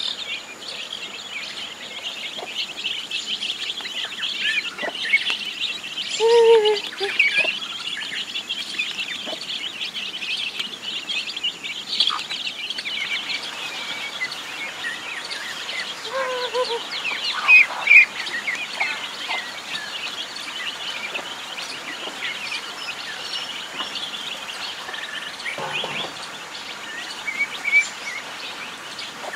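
A flock of ducklings and chicks peeping continuously as they feed, with a few lower, falling calls among the peeps.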